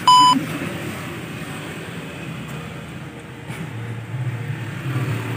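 A short electronic test-tone beep, about a quarter second at a steady 1 kHz pitch, from a "no signal" TV-glitch transition effect. It is followed by street ambience with the low hum of passing vehicle engines.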